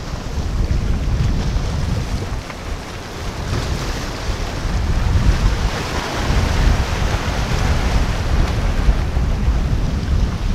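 Wind buffeting the microphone with a heavy, gusting low rumble, over the steady rush of choppy water.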